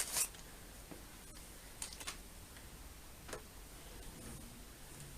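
Sparse, faint, irregular clicks and taps of small screws and a screwdriver being handled while fitting a TV stand base, after a brief crinkle at the very start.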